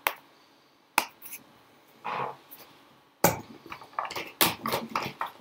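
Rummaging in a makeup bag: cosmetic cases click and knock against each other amid rustling. There are a couple of single clicks at first, and it gets busy with clatter from a little past halfway.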